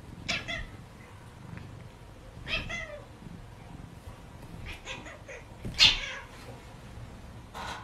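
A cat giving several short, complaining meows, the loudest and harshest a yowl near six seconds in.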